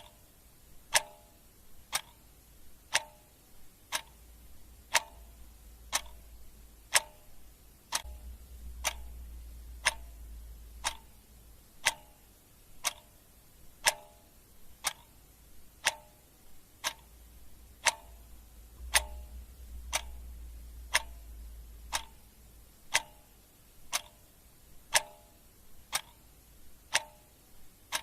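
Clock ticking once a second, sharp and perfectly even. A faint low rumble swells twice underneath.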